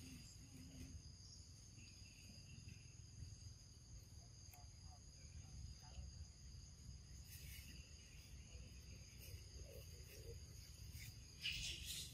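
Faint, steady high-pitched insect chorus holding two even tones, over a low rumble. A short, louder noise comes near the end.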